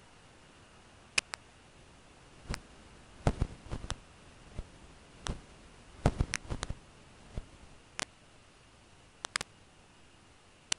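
Irregular dry clicks and crackles of the grass and sticks of the nest as downy bald eagle eaglets shift in their sleep, over a faint steady hiss. The clicks come in two small clusters, a few seconds in and around the middle, with single ticks between.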